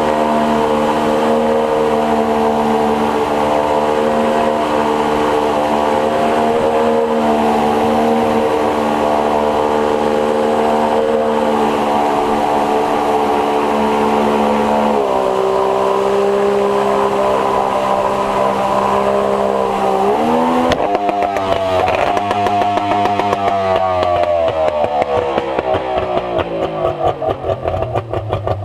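A 50-horsepower outboard with a jet drive pushing an inflatable boat upriver, running steadily at high revs. About halfway it drops in pitch, briefly picks up again, then winds down steadily toward the end with an uneven, wavering note as the throttle comes off.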